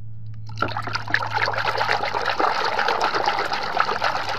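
A hand sloshing and rubbing in a basin of soapy water: dense splashing, dribbling and foam crackle that starts about half a second in. A steady low hum runs underneath.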